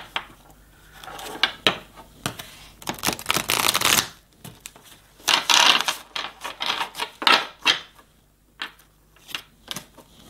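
A deck of large oracle cards shuffled by hand, a run of papery swishes and riffling strokes, then separate sharp card flicks and taps in the second half as a card is laid on the wooden table.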